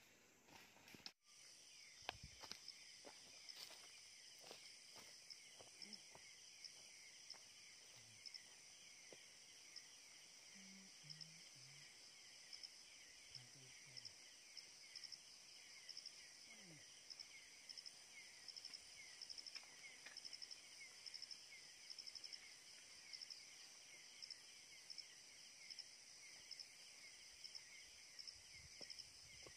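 Faint chorus of night insects: several steady, rapidly pulsing high trills layered together, with a few soft knocks in the first few seconds.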